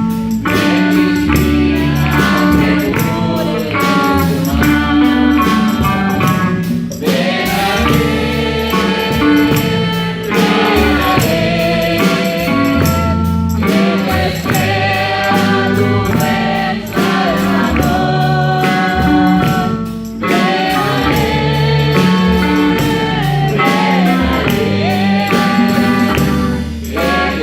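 A men's church group singing a gospel hymn together, backed by instruments with a steady beat and percussion.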